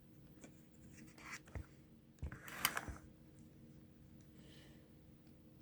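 Faint handling of a euro cylinder lock: a few small clicks, then a short scraping rustle about two and a half seconds in.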